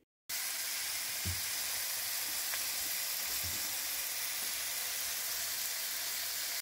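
Raw pork strips sizzling in a hot frying pan: a steady, even sizzle with a couple of faint low bumps.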